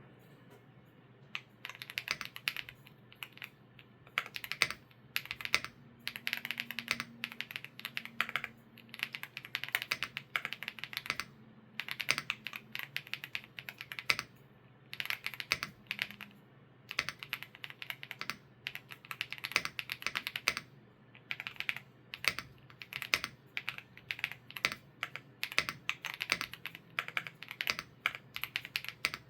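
Typing on a WOBKEY Rainy75 Pro mechanical keyboard with Kailh Cocoa switches: quick runs of keystroke clacks, each a second or two long, with short pauses between them.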